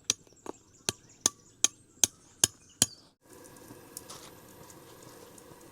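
A run of eight sharp, evenly spaced clicks, about two and a half a second. After a brief drop to quiet, a steady low hiss carries on.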